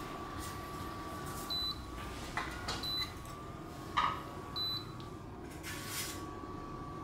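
Induction cooktop running with a steady hum and a constant thin whine, its built-in cooling fan on. Metal chopsticks click against the wire grill rack a few times, and three short high beeps sound.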